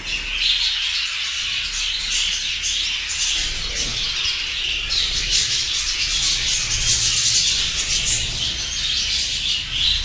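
A large colony of budgerigars chattering continuously, a dense mass of many overlapping high chirps and warbles.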